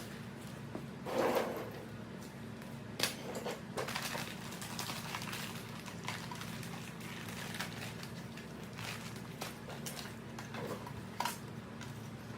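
Scattered light clicks and knocks of hard plastic parts being handled and fitted, with louder knocks about one and three seconds in, over a steady low hum.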